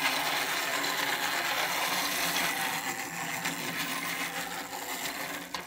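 Pull-back Thomas the Tank Engine toy running around a plastic track: its wound spring motor and gears whirring steadily.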